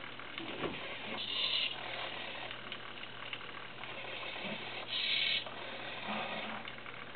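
Hobby servos of a homebuilt robot arm whirring as the arm swings and its gripper works, with two louder, higher-pitched buzzes about a second in and about five seconds in, over a steady low hum.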